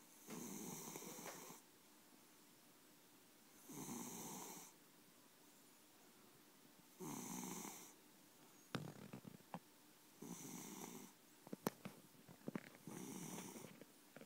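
A cat snoring in its sleep: five snores, about one every three seconds, each a noisy breath lasting about a second. Several sharp clicks fall between the later snores.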